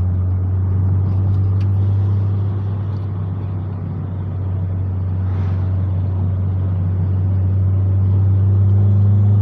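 Car driving uphill: a steady low engine drone with road noise, the engine working under the load of the climb. The sound eases a little about four seconds in, then builds again near the end.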